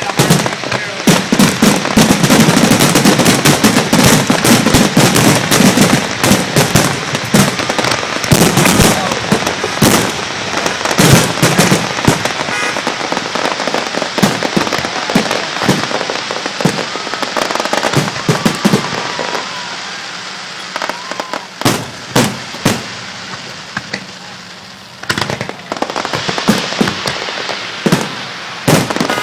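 Fireworks finale: a dense, rapid barrage of aerial shell bursts with constant crackling. About two-thirds of the way in it thins to softer crackle with few bangs, then scattered loud bursts return near the end.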